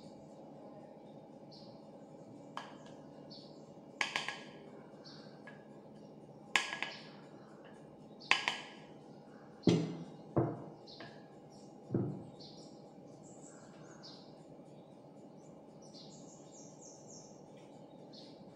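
A plastic spatula knocking against a glass mixing bowl as thick cream cheese batter is scraped off it. There are a few sharp, ringing taps about two seconds apart, then three duller knocks, over soft background music.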